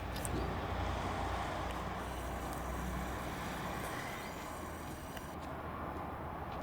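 Steady outdoor background rumble and hiss, with a faint short bird call about four seconds in.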